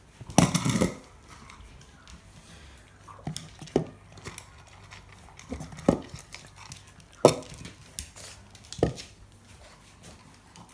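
A short clatter about half a second in, then single sharp knocks and clicks at irregular intervals, roughly one every second.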